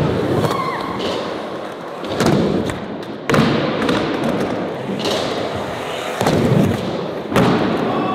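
Skateboard rolling, its wheels giving a continuous rough rumble, with several sudden hard clacks and thuds of the board popping and landing, about three, five and seven seconds in.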